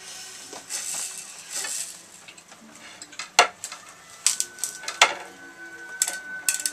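Tableware at a meal: knives scraping and tapping on plates, cups and packaging handled, with scattered sharp clinks, the loudest about three and a half and five seconds in. A faint steady high tone sounds through the second half.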